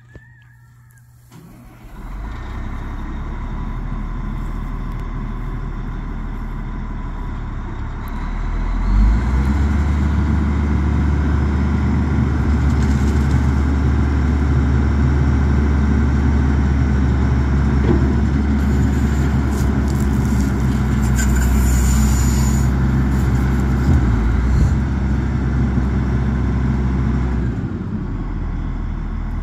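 Caterpillar 980G wheel loader's diesel engine running, coming up in level about two seconds in. It gets louder from about nine seconds in as the loader drives and turns around, then settles back near the end.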